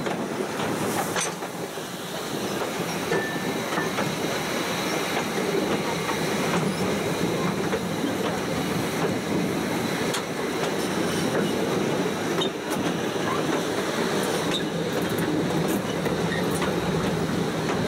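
Metre-gauge train in motion, heard from an open wagon hauled by a steam locomotive: a steady rumble and rattle of wheels on the track, with a few sharp clicks scattered through it.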